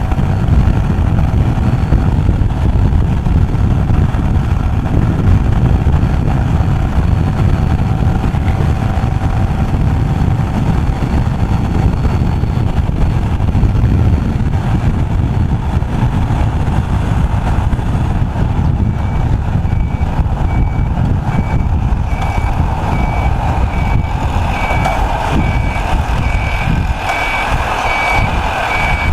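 Motorcycle riding at speed, with a heavy low rumble of wind buffeting the microphone over the engine and road noise. About two-thirds of the way in, a steady, evenly repeating high electronic beep starts and keeps going.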